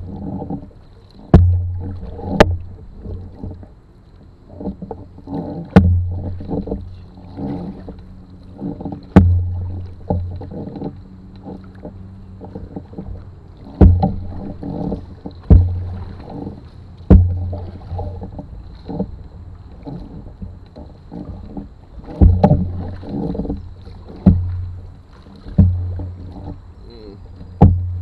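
Canoe paddle strokes knocking against the canoe's hull: a sharp knock with a low thump, roughly every one to four seconds, with water noise between.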